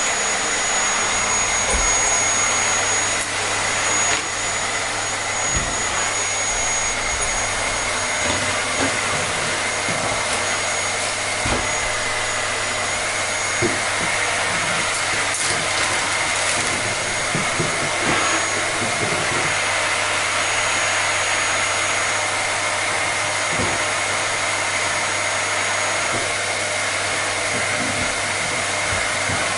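Vacuum cleaner running steadily: an even rush of air with a high, steady whine from the motor.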